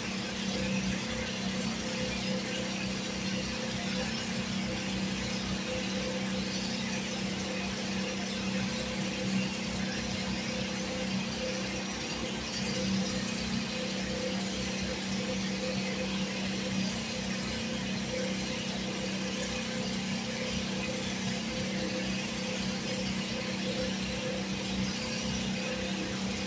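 Steady low hum of distant electric generators running during a widespread power blackout, with constant tones that never change. Behind it is an even hiss of light rain.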